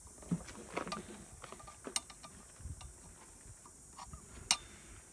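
Flathead screwdriver prying a rubber valve stem out of a scooter's alloy wheel rim: scattered small metal clicks and scrapes, with sharper clicks about two seconds in and near the end.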